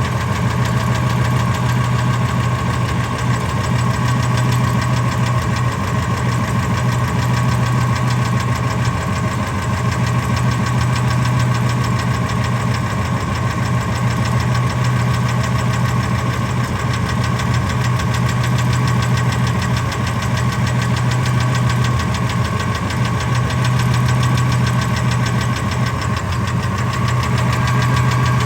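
Ford F-250 engine idling steadily with a fast, even ticking running through it. The rocker arms and lash adjusters checked out like new, so the owner hopes the tick is spark knock.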